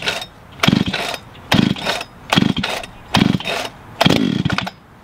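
Husqvarna 395XP chainsaw, a big two-stroke, being pull-started: about six quick yanks on the starter cord, roughly one a second, each a short burst of cranking. The engine does not catch.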